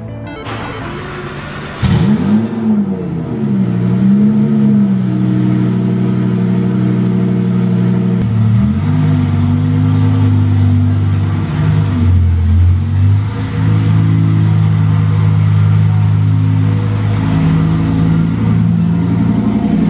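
Lamborghini Huracán's twin-turbocharged V10 starting up about two seconds in, with a loud flare of revs that rises and falls, then settling into a steady idle that dips and shifts in pitch a few times.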